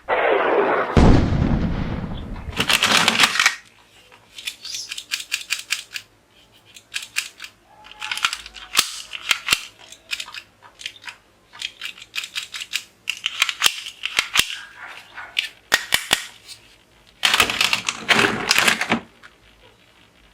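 Toy guns firing: bursts of rapid, sharp shot sounds, several clusters in a row with short gaps between them. It opens with a loud rushing burst lasting about three seconds.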